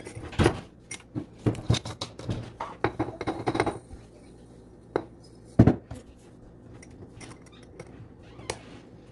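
Clinks and clicks of a glass swing-top jar with a wire clasp and a spoon inside, then granules poured in from another glass jar. A sharp glass knock comes about five and a half seconds in, and the lid is pressed shut with a click near the end.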